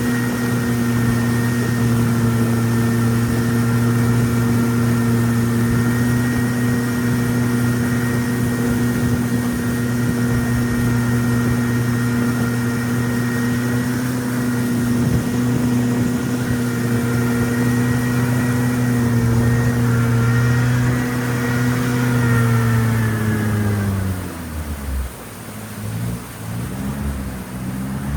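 Boat engine running steadily at cruising speed, then throttled back about 23 seconds in, its pitch falling and wavering up and down at low revs near the end.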